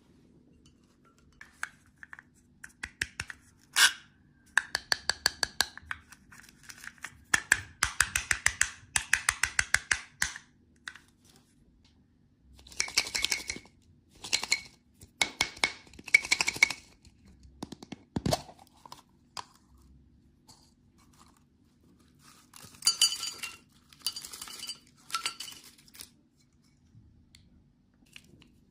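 Candy packaging being handled and opened close to the microphone: quick runs of small clicks and clinks, then several short bursts of wrapper crinkling and tearing.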